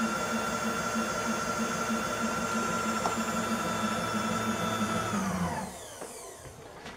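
Milling machine table traversing on its power feed, a small motor running with a steady high whine, then cut off about five seconds in and winding down in falling pitch.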